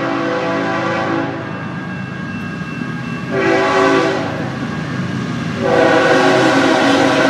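Approaching BNSF diesel freight locomotive sounding its multi-chime air horn for a grade crossing. A long blast ends about a second in, a short blast follows a couple of seconds later, and the final long blast begins near the end: the standard long-long-short-long crossing signal.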